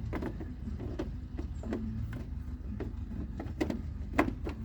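Light, irregular clicks and taps of a headlight bulb and its cap being twisted and seated in the back of a pickup's headlight housing, with two sharper clicks near the end, over a steady low hum.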